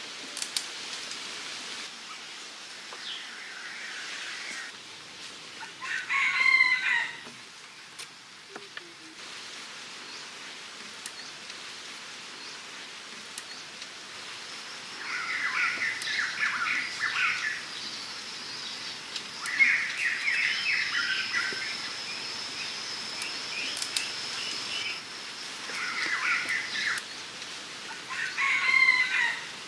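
Birds calling over a steady hiss: two longer calls about six seconds in and near the end, and bursts of quick chattering calls in between. A thin, steady high tone runs through the middle stretch.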